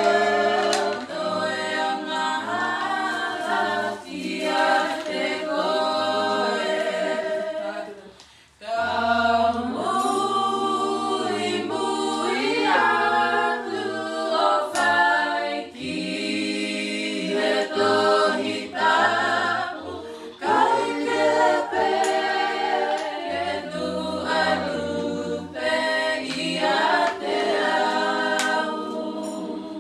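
Tongan song sung a cappella by a group of voices in harmony, with no instruments. The singing breaks off for a moment about eight seconds in, then carries on.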